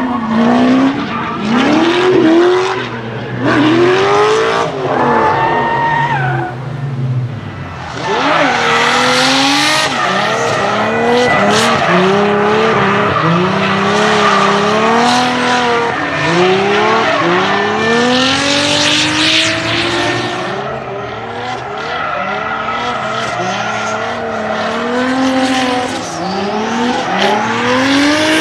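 Drift cars sliding sideways, engines revving up in short rising sweeps one after another as the throttle is worked, with tyres squealing. The tyre noise is loudest through the middle stretch.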